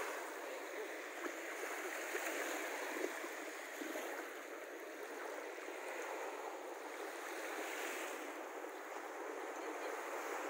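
Small Baltic Sea waves washing onto a sandy shore, a steady, gently swelling surf noise.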